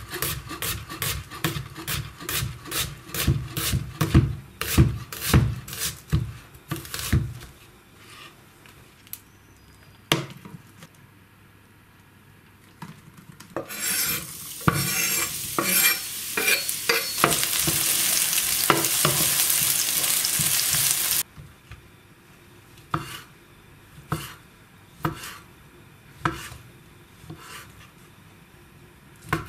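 Chef's knife slicing onions on a bamboo cutting board, quick knocks about three a second. Then sliced onions tipped into a hot oiled frying pan, sizzling loudly before cutting off suddenly. Then single knife strokes through a sausage onto the board, about one a second.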